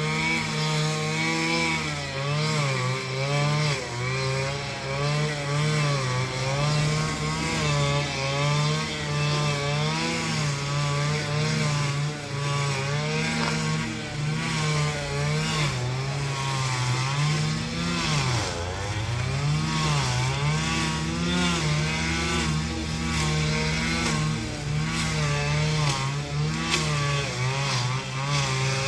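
Small two-stroke engine of a handheld power tool running at high speed. Its pitch rises and sags repeatedly as it takes load, and it bogs down deeply once and recovers about 18 seconds in.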